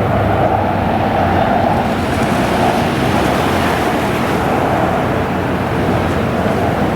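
Jet airliner's engines passing low on landing approach: a steady rushing noise that eases after about three seconds.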